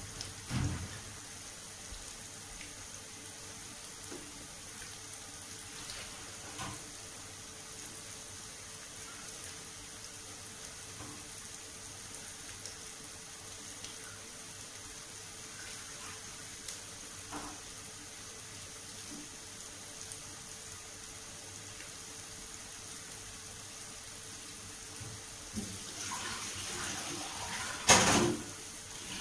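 White tofu cubes deep-frying in hot oil in a wok, a steady sizzle. The sizzle grows louder a few seconds before the end, and a sharp, loud noise comes near the end.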